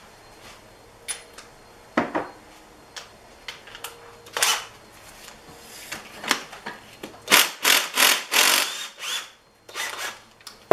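Clicks and knocks of tools being handled, then from about seven seconds in several short bursts of an impact wrench hammering, loosening the 14 mm nut that holds a gear on a YZ125 two-stroke engine's case.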